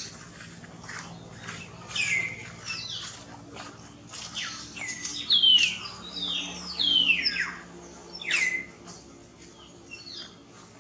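Baby monkey crying: a string of high, short squeals that each slide downward in pitch, loudest around the middle and thinning out near the end.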